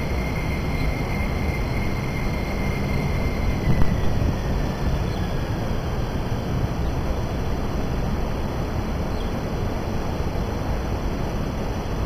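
MTR East Rail Line electric multiple-unit train moving slowly away, a steady rumble with a high whine that holds, then glides down and fades about four seconds in. A knock sounds just as the whine starts to fall.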